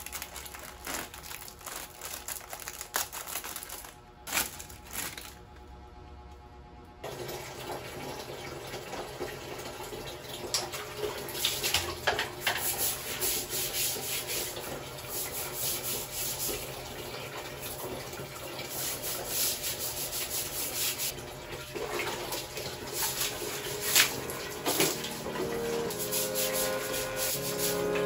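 Light clicks and snips as a sponge pack is cut open with scissors at a steel sink. Then, from about seven seconds in, steady running water with repeated scrubbing and splashing as a tiled bathroom is cleaned.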